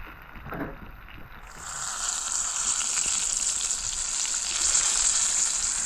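Floured barracuda pieces frying in hot oil in a cooking pot, a steady sizzle that gets much louder about a second and a half in.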